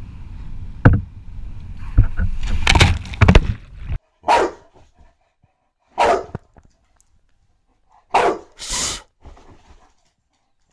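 Wind buffeting the microphone over surf, with a few loud thumps, cuts off suddenly about four seconds in. A boxer dog then barks four times, short sharp barks about two seconds apart, the last two in quick succession.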